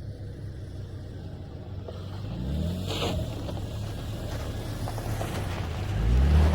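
A motor vehicle's engine running, rising in pitch twice as it revs up, about two seconds in and again near the end, where it is loudest.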